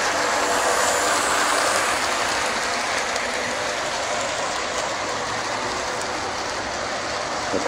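Model train running on the layout track: a steady whirring rattle of the locomotive's small electric motor and the wheels on the rails. It is loudest in the first couple of seconds, as the locomotive passes close, then eases off slightly.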